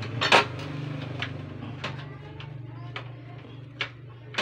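Hard plastic clicks and knocks as black control knobs are fitted onto a gas stove's front panel: one loud knock about a third of a second in, then several lighter clicks spaced about a second apart. A steady low hum runs underneath.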